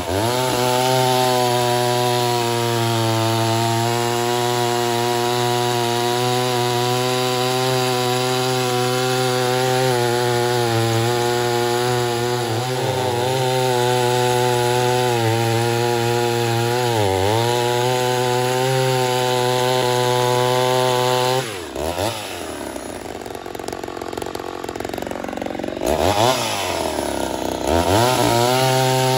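Ported Poulan 245a two-stroke chainsaw running at full throttle through wood, its pitch dipping briefly twice under load. About two-thirds of the way in the engine drops to a lower, falling speed, then revs up sharply twice and settles back at full throttle near the end.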